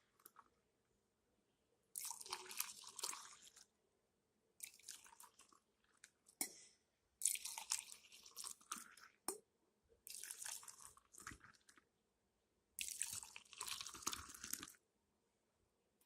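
Rice-boiled water mixed with beaten egg being poured back and forth between two cups to cool and froth it, about five pours of a second or two each, with two sharp taps between them.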